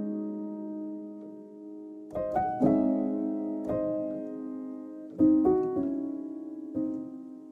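Slow, gentle piano music: chords struck every second or two, each left to ring and fade away.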